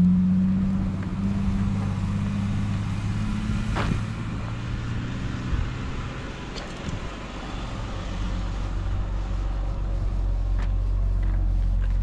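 Jeep Wrangler's engine running as it rolls slowly past on a gravel road, its steady hum fading after about five seconds. A low rumble builds near the end.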